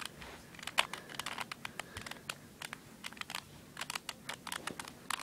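Light plastic clicks of a Rubik's brand 2x2 cube being turned and handled, an irregular run of several clicks a second.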